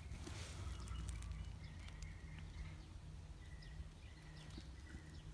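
Faint rustle of a hand digging into and scooping up a handful of chicken-run compost and wood-chip mulch, mostly in the first second. After it, a quiet outdoor background with a few faint bird calls.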